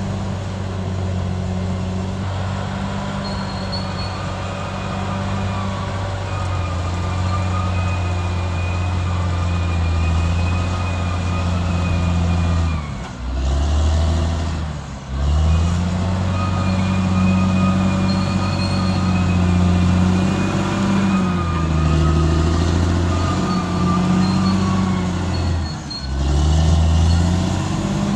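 Caterpillar D6R XL bulldozer's diesel engine running steadily under load, its note dipping sharply and recovering three times, with a faint high-pitched whine above it.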